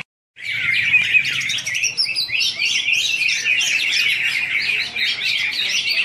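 Cucak hijau (greater green leafbirds) singing: a dense, unbroken stream of rapid, varied chirping and warbling notes. It starts after a brief dropout at the very beginning.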